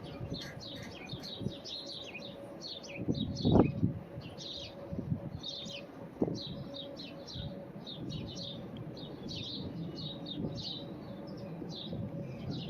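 Small birds chirping busily over the faint, steady alert tone of distant Whelen WPS-2910 outdoor warning sirens. A few low thumps break in, the largest about three and a half seconds in.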